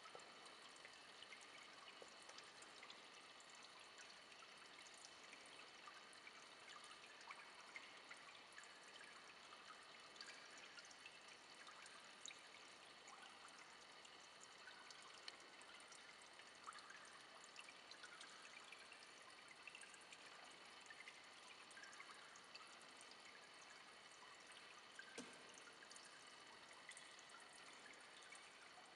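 Faint, steady trickle of running water with small splashing clicks throughout.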